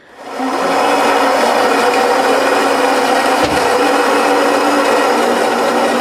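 Saeco Minuto super-automatic espresso machine's built-in ceramic burr grinder grinding beans for a shot, starting up and then running steadily.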